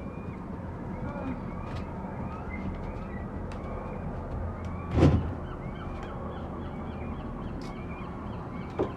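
Seagulls calling, many short overlapping cries. A brief loud thump about five seconds in.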